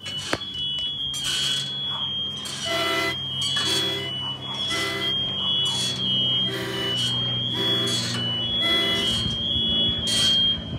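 A fire alarm sounds a steady high-pitched tone throughout. From about three seconds in, a harmonica joins with a short note repeated about once a second, imitating the cab alarm of an F59PHI locomotive.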